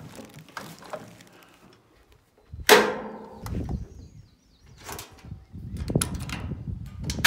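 Knocks, clicks and rustling as the operator settles onto the plastic-covered seat of the mini excavator and handles its control levers, with one loud sweep and thud about three seconds in. A low rumble builds over the last two seconds.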